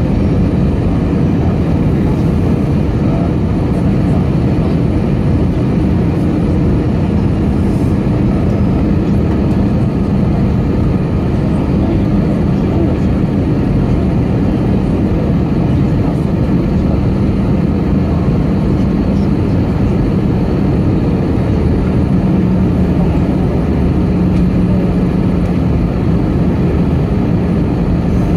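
Cabin noise inside an Embraer E195 airliner descending on approach, heard from a window seat beside the wing: a steady roar of air rush and its General Electric CF34-10E turbofan engine, with a low hum underneath that grows a little stronger near the end.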